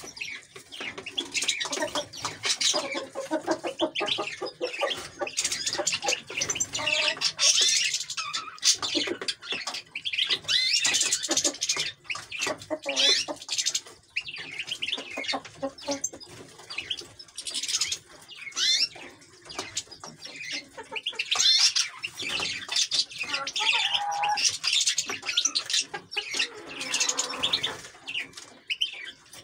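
European goldfinches chirping and twittering continuously, many fast high calls overlapping, with some lower-pitched calls underneath.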